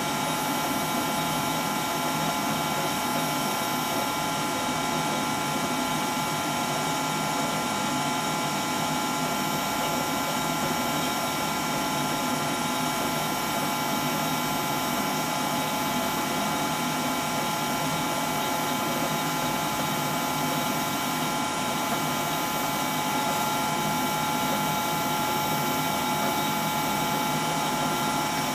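The agglomeration rig with its high-voltage supply running: a steady mechanical noise with several high tones held constant and no change in level.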